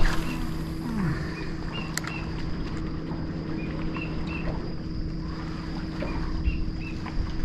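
A steady low hum with a constant pitch, over a wash of wind and water noise around a small boat, with several short high bird chirps and a single click about two seconds in.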